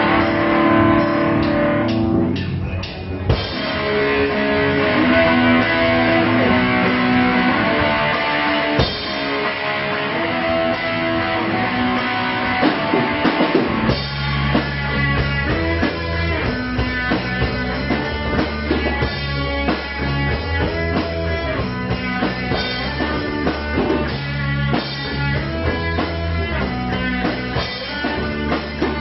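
Live rock band playing an instrumental passage: guitar over a drum kit, with a heavy bass line joining about fourteen seconds in.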